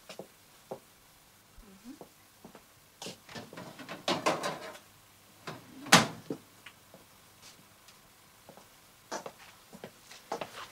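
Scattered knocks and clatter of objects being handled in a room, with one louder, sharp knock about six seconds in.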